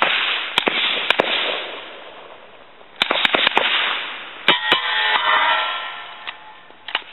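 Suppressed semi-automatic Uzi short-barreled rifle fired in quick strings: about ten sharp shots in three bursts, four, four and two, each followed by a fading echo.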